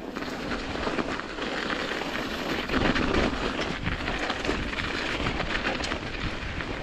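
26-inch mountain bike tyres rolling and crunching over a snow-covered dirt trail, with the bike rattling over the bumps. The noise is steady with a dense patter of small clicks and is loudest about three seconds in.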